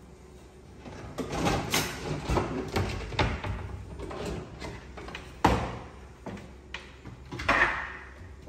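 Kitchen clatter: an irregular run of knocks and bumps from cupboards and a cooking pot being handled at the stove, with one sharper knock about five and a half seconds in.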